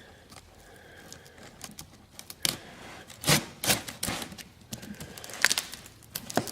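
A cardboard shipping box being cut open along its taped seam, with irregular clicks and scrapes of the blade through packing tape and cardboard, sparse at first and more frequent in the second half.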